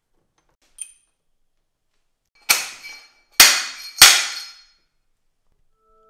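A faint click, then three sharp metallic knocks about a second apart, each ringing briefly.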